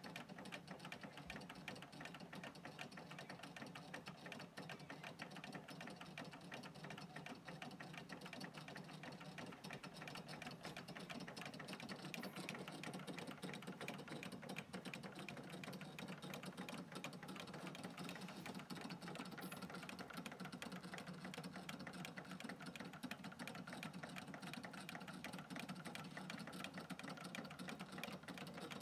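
Early Märklin toy hot air (Stirling) engines running: a fast, steady mechanical clatter of their small pistons, cranks and linkages, a little louder from about halfway through.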